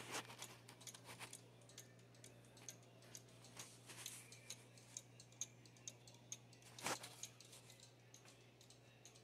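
1973 German cuckoo clock ticking faintly with an even tick-tock: the movement is running in beat. Two louder knocks come at the very start and about seven seconds in.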